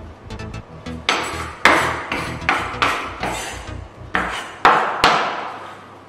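A kitchen knife knocking and scraping against a bowl, about ten sharp knocks roughly two a second, each with a short ring, knocking the last shredded cauliflower loose.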